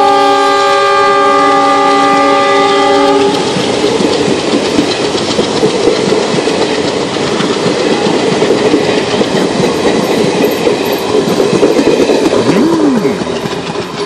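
Horn of twin WDM diesel locomotives sounding a steady chord of several tones, cutting off about three seconds in. The passenger coaches then roll past with wheels clicking over rail joints, the rumble fading near the end as the train moves away.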